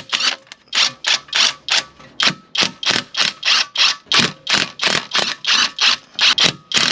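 Ratchet wrench swung back and forth undoing the drive shaft bolts, a short burst of clicking on each stroke, about three strokes a second.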